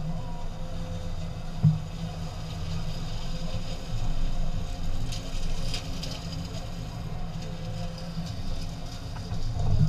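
Steady low rumble of a pickup truck driving slowly along a dirt track, with one short knock about two seconds in.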